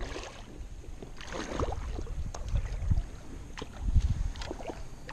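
Shallow creek water splashing and sloshing as a hooked smallmouth bass is drawn in through the water around wading legs. There is a low wind and handling rumble on the microphone and a few short, sharp knocks.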